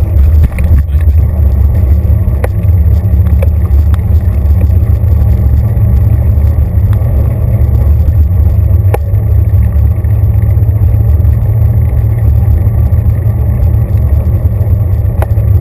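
Rolling noise of a bicycle on pavement, carried through a handlebar-mounted camera as a loud, steady low rumble, with a few sharp knocks from bumps.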